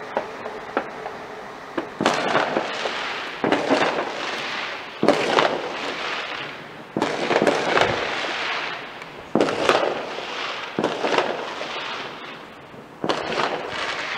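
Fireworks going off in a string of about seven sudden bangs, one every second or two, each trailing away over a second or two.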